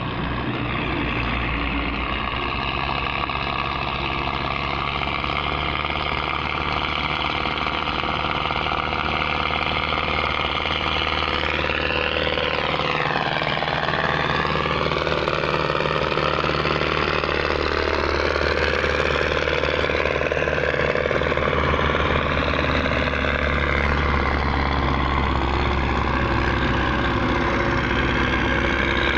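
Diesel engines of several Belarus MTZ tractors, chained in tandem, running steadily under load as they haul a heavily loaded sugarcane trolley, growing slowly louder as they come close. The engine note dips and recovers about halfway through.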